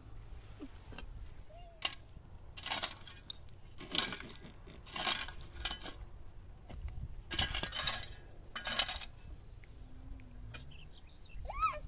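Metal kitchenware being handled: about six short clinks and scrapes, spaced roughly a second apart, with a short squeak that rises and falls near the end.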